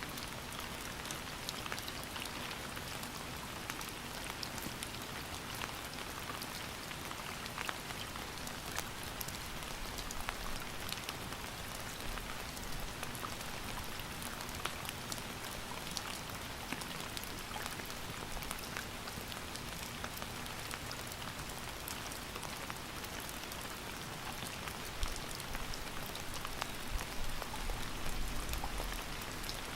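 Steady rain falling, a dense hiss of drops with individual drop ticks scattered through it. A low rumble swells briefly near the end.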